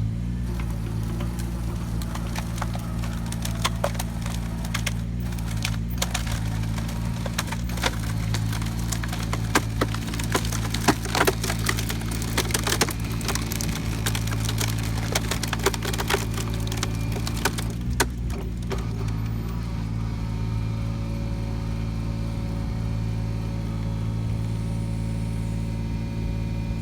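Takeuchi TB219 mini digger's diesel engine running steadily while its hydraulically driven cone splitter screws into a log. The wood cracks and splinters in a run of sharp cracks through the middle stretch, densest about ten seconds in, then the engine carries on alone.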